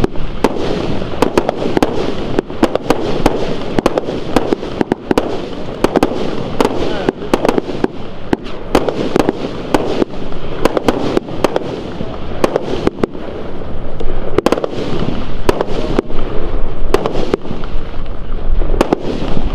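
Firework cake firing a rapid barrage of shots, dozens of sharp reports several a second as the tubes lift and burst their stars.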